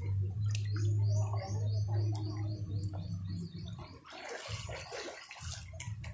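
Pool water lapping and sloshing against a camera held at the waterline, heard as a muffled low rumble with small drips and ticks. A noisier burst of sloshing comes about four seconds in.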